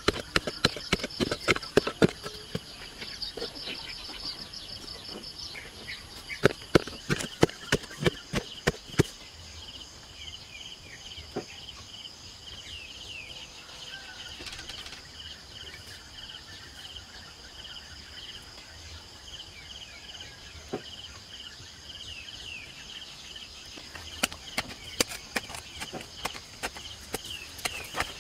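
A hand digging tool repeatedly striking and scraping hard, dry soil while post holes are dug, in quick runs of sharp knocks for the first nine seconds and again near the end. Underneath, a steady chorus of insects chirping, with some bird calls.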